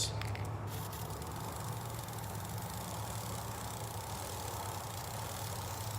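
Aerosol chain lube spraying in a steady hiss that stops abruptly near the end, with a low steady hum underneath.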